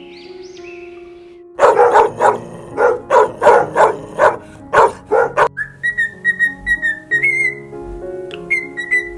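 A dog barking repeatedly, about ten loud barks in quick succession over some four seconds, starting about a second and a half in, over soft background music.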